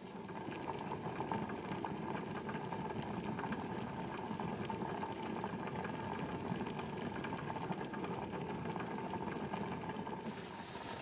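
Lidded aluminium pot of pork-and-napa-cabbage hot pot boiling on a gas canister stove, a steady bubbling with small crackles; it is boiling hard enough to spill over a little.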